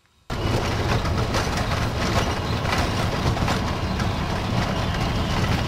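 Steady noise of a moving vehicle, a low rumble with hiss over it, cutting in suddenly just after the start.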